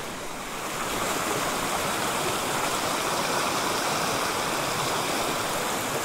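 Small mountain stream rushing steadily over rocks, a little louder from about a second in.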